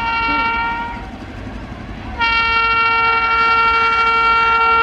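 Electric locomotive's horn sounding a long steady blast that dies away about a second in. A second, louder blast starts abruptly about two seconds in and holds on. Underneath is the rumble of an express train running through at about 130 km/h.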